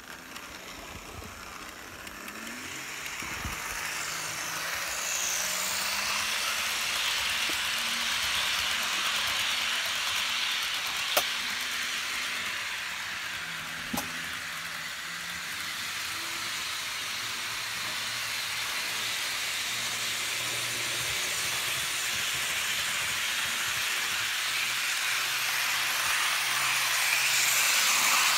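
HO-scale Lima model diesel locomotive (DSB Class MZ) and its passenger cars running on the layout's track: a steady whirring motor and wheel hiss with a low hum underneath, growing louder as the train comes closer near the end. Two sharp clicks sound a few seconds apart in the middle.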